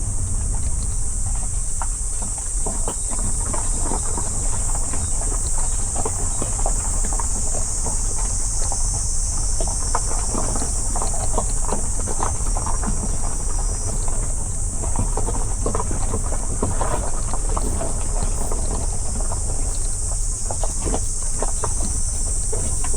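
Car driving along a road: a steady low rumble of road and wind noise, with a constant high-pitched hiss and scattered light clicks.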